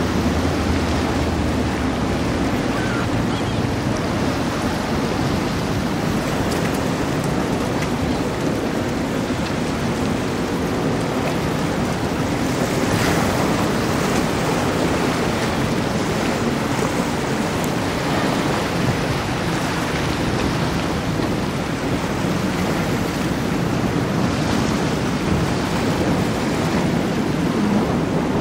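Steady rushing noise of wind buffeting the microphone over waves and surf, with no distinct engine note standing out; it swells a little around the middle and again near the end.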